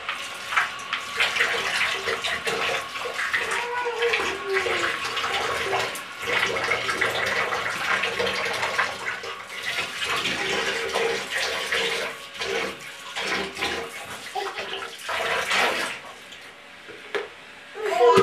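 Water splashing and sloshing in a bathtub, a busy run of irregular splashes that eases off near the end.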